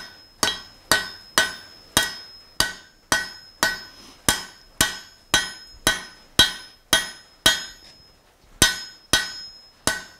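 Hand hammer striking hot steel on an anvil, about two blows a second, each followed by a short ring, drawing out a taper at the tip of the bar. The blows pause briefly about three-quarters of the way through, then resume.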